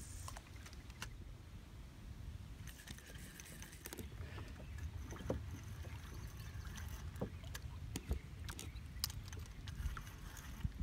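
Water moving around a small fishing boat, with a steady low rumble and scattered light clicks and knocks from the boat and fishing gear.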